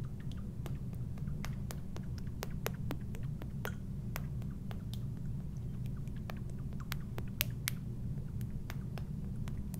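Valentina hot sauce dripping out of an upturned bottle onto a plate of loaded nachos: scattered small ticks and splats of sauce landing on the chips, over a steady low hum.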